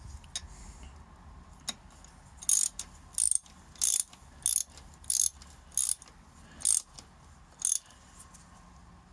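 Ratchet wrench clicking in about eight short strokes, roughly one every two-thirds of a second, running a bolt down on the motorcycle, with a couple of light clicks before them.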